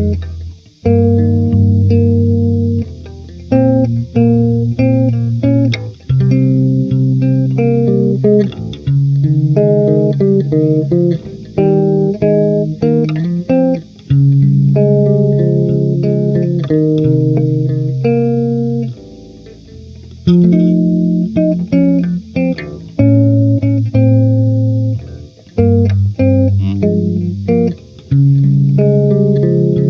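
Electric bass guitar played through a Behringer UMC22 audio interface as a sound test: a run of held notes and double-stops, each ringing for about half a second to two seconds, in phrases broken by short pauses.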